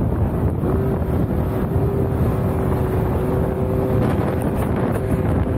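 Side-by-side off-road buggy driving on sand, its engine a low rumble under wind rushing over the microphone, with a steady whine coming in about half a second in.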